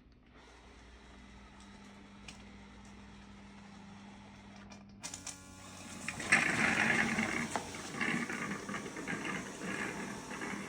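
Narwal Flow robot vacuum-mop running: a faint steady hum at first, then from about five seconds in a louder motor noise that pulses unevenly.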